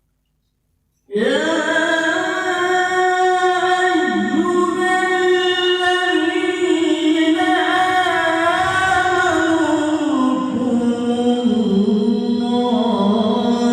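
A qari's voice in melodic Qur'an recitation (tilawah), starting about a second in with one long phrase held in a single breath. The notes wind up and down in ornamented turns and step down in pitch toward the end.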